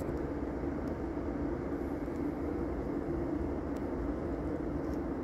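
A steady low rumbling noise at an even level, with no distinct events.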